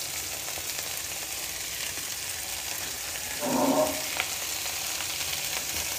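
Vegetables sizzling in oil in a frying pan as rice vermicelli is stirred in with wooden chopsticks: a steady frying hiss. A brief, louder muffled sound comes about three and a half seconds in.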